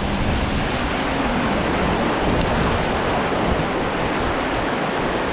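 Fast river water rushing over rocks in whitewater rapids, a steady, even sound with no let-up.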